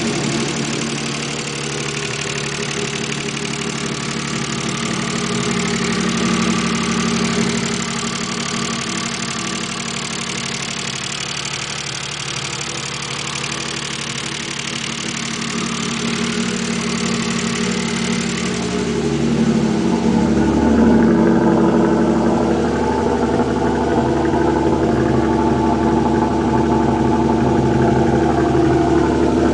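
Mazda K8 1.8-litre V6 engine idling with a knocking noise that began after the left-bank camshafts were removed and refitted; the owner believes the timing belt is set right and the tensioner is fine. About two-thirds in the sound turns lower and fuller and a little louder.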